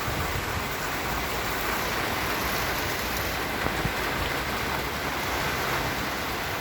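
Steady rain falling on a garden of basil plants, an even, unbroken hiss of rain.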